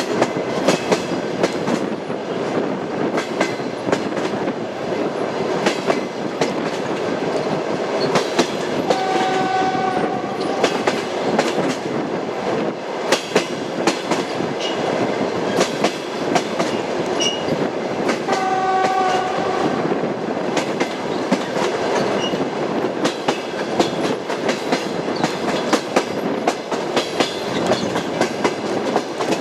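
Train wheels clattering over rail joints with a steady running rumble, clicks coming one after another throughout. A horn-like tone sounds twice, for about a second and a half roughly nine seconds in and about a second near nineteen seconds in.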